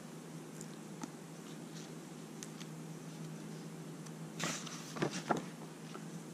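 A page of a hardcover picture book being turned by hand: a short paper rustle and a couple of soft flaps about four to five seconds in, over a faint low steady hum.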